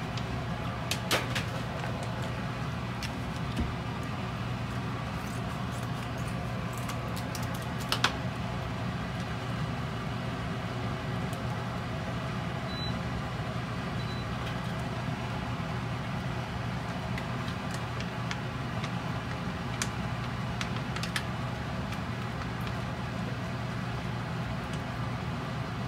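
A steady low hum and hiss, with a few light clicks and taps as raw chicken pieces and seasoning sauce are put into a metal pot; the sharpest taps come about a second in and about eight seconds in.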